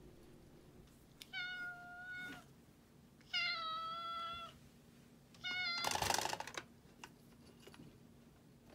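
Ginger-and-white kitten meowing three times, each meow about a second long. The last is the loudest and turns rough. They are calls to be let out of its cage.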